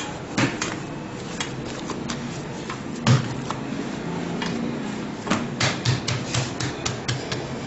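Hands patting and pressing an oiled ball of risen yeast dough on plastic sheeting over a stone counter: irregular soft slaps and clicks, with a louder knock about three seconds in and a quicker run of taps near the end.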